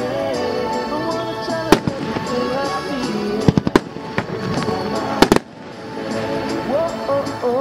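Consumer aerial fireworks bursting with sharp bangs: one about two seconds in, a quick cluster of three or four around the middle, and two more a second later. Background music with a singing voice plays throughout.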